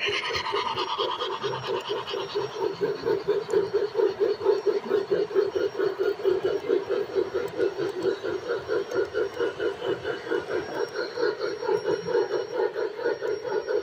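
MTH O scale Great Northern Z-6 Challenger model steam locomotive, its onboard sound system chuffing in a rapid, even rhythm as it hauls a heavy train past, with a hiss fading out over the first two seconds.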